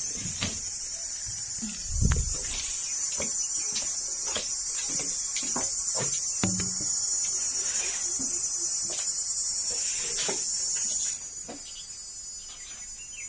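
Steady high-pitched insect chorus that drops away about eleven seconds in, with scattered light clicks and taps and a low thump about two seconds in.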